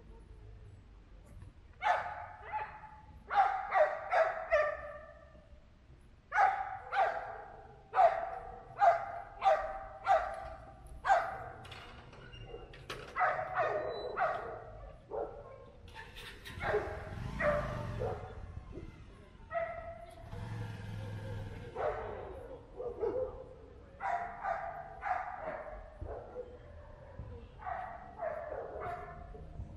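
A dog barking repeatedly in quick runs of short barks, starting about two seconds in.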